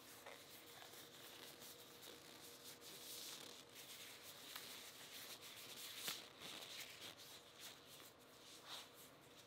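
Thin disposable gloves being pulled onto the hands: faint rubbing and rustling of the glove material, with a few light clicks and snaps as the cuffs are tugged.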